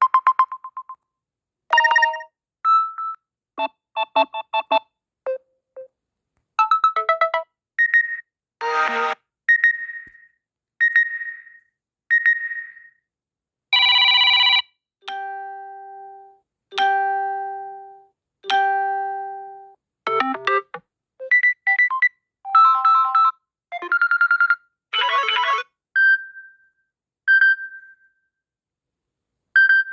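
Smartphone notification tones previewed one after another: about twenty short chimes, dings and little jingles, each a few notes long and separated by brief silences. Near the middle, three identical two-note tones ring out and fade slowly, one after the other.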